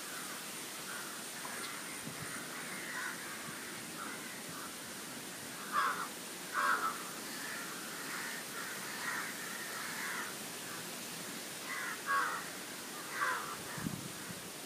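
Crows cawing: loud calls in two pairs, a few seconds in and again later, with fainter caws in between over a steady hiss. A soft low thud near the end.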